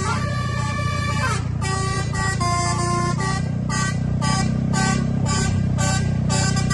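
Multi-tone Indonesian bus telolet air horn playing a melody: a held chord that slides down about a second in, then a quick run of short notes at changing pitches. A steady low hum runs underneath.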